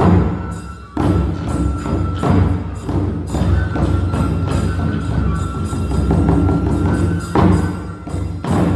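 Kagura music: a large barrel drum (taiko) struck in heavy single beats near the start and again about 7 seconds in, with a run of quick light taps in the middle and a high steady note held over it.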